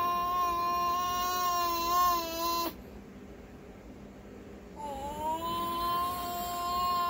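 Baby vocalizing in long, held calls at a nearly level pitch. The first call breaks off about two and a half seconds in, and a second starts close to five seconds in.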